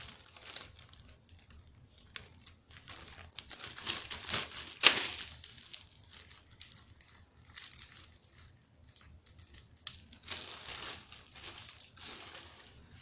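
Irregular crinkling and rustling of packaging and containers being handled, with scattered light taps and a sharp click about five seconds in.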